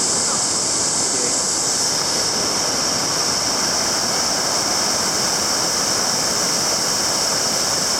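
A large waterfall pouring down in a steady, dense rush of water noise.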